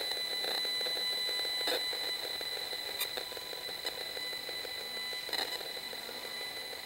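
Audio output of a Safe and Sound Pro RF microwave meter: a steady high-pitched electronic tone with a few short crackles a second or more apart, the meter sounding the pulsed microwave signals it is picking up.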